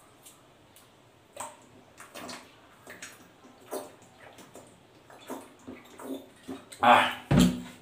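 A man drinking from a plastic bottle: a run of gulps and swallows at uneven intervals, then two louder sounds near the end, the second with a deep low thud.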